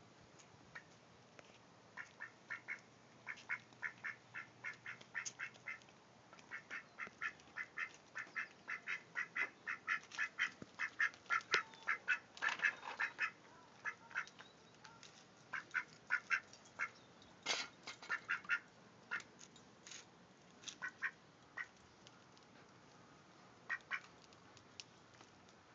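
Domestic duck quacking in long runs of short, rapid quacks, about three a second, thinning to a few scattered quacks in the last several seconds. A single sharp knock about 17 seconds in.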